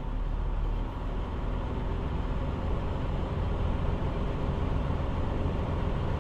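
Semi truck's diesel engine running with a steady low rumble, heard from inside the cab.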